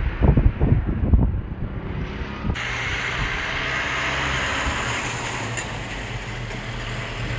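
Strong storm wind buffeting the microphone in irregular low rumbling gusts. About two and a half seconds in, the sound changes abruptly to a steady rushing wind.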